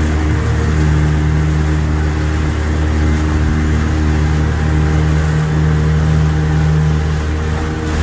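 Motorboat engine running steadily at an even pitch while the boat moves across the lake, with water noise under it.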